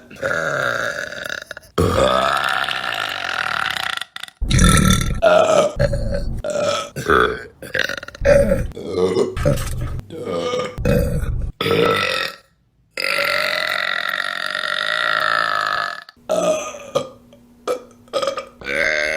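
A rapid string of women's burps from separate clips cut one after another, mostly short, with a couple of long, drawn-out pitched burps lasting two to three seconds each.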